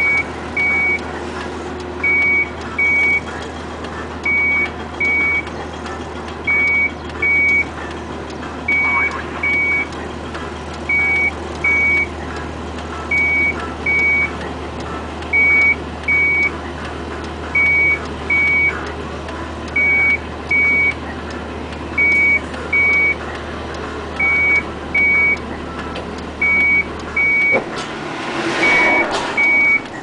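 Vehicle reversing alarm beeping in pairs, two short high beeps repeating about every two seconds, over a low steady hum. Near the end the hum stops and a brief louder rush of noise follows.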